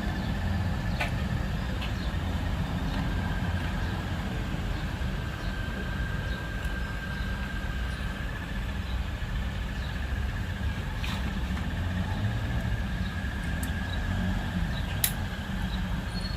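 Steady low rumble of running machinery with a faint steady high whine, broken by a few sharp clicks of tools on the throttle body, about a second in, around eleven seconds and once more near the end.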